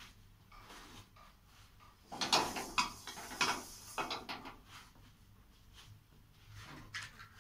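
Kitchen cookware and utensils being handled: a cluster of knocks and clatters about two seconds in, a few single knocks around three and a half and four seconds, and another near the end.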